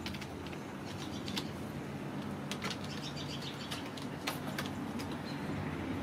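Kittens' claws scratching and scrabbling on a carpeted cat tree: short, sharp scrapes and clicks scattered every second or so over a steady low hum.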